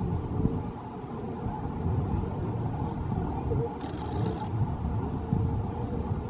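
Steady low rumble of a small ride boat running along a guided water channel, with a brief faint high tone about four seconds in.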